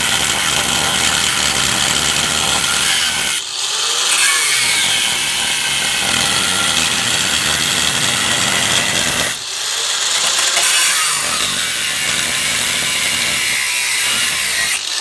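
Angle grinder with a flap disc grinding steel on a car's underbody down to bare metal for welding. It runs steadily and loudly, with two brief drops about three and a half and nine and a half seconds in.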